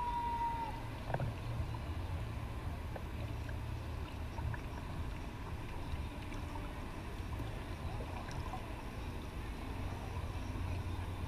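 Low steady rumble and faint water sounds from a kayak on the river, with a couple of light knocks about a second in.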